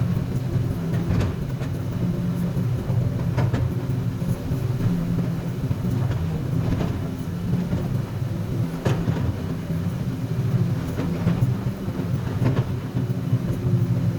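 Komatsu PC200 hydraulic excavator's diesel engine running steadily under work, with a few short knocks scattered through, about one every two seconds.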